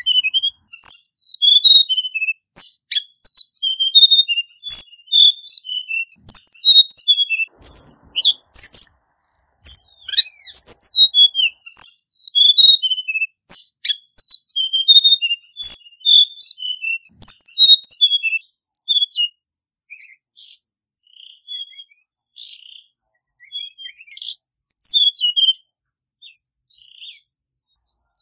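Male hill blue flycatcher singing: repeated quick phrases of high, sweet whistled notes that step down in pitch. There is a short pause about nine seconds in, and the notes turn softer and sparser in the last third.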